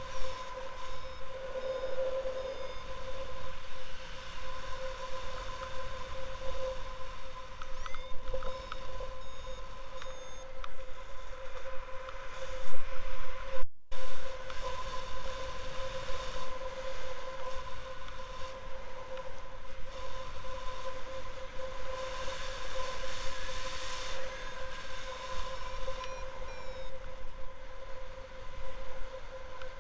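Wind buffeting the microphone of an action camera on a paraglider in flight, a gusty rumble, with a steady high tone running underneath. The sound cuts out for a moment about halfway through.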